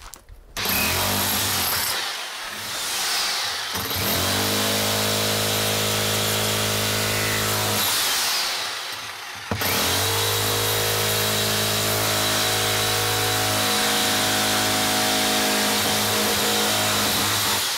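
Titan TTB653 SDS hammer with a point chisel, its hammer action pounding into and breaking up a concrete block. It runs steadily in two long bursts, stopping about eight seconds in and starting again about a second and a half later.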